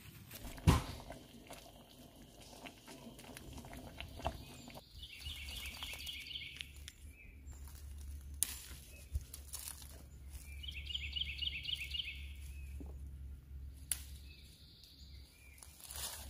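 A songbird sings twice, each time a quick string of repeated high notes lasting under two seconds, over the rustle and ticks of leaves and vines being handled. A sharp snap comes about a second in, the loudest sound.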